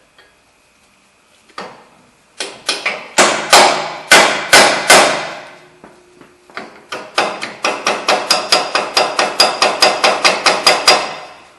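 Hammer striking a steel chisel wedged in the slot around a rusted upper ball joint, metal on metal with a ringing note, to spread the slot and free the joint. A single tap comes first, then a string of heavy blows about three a second, a short pause, and a quicker run of lighter blows until near the end.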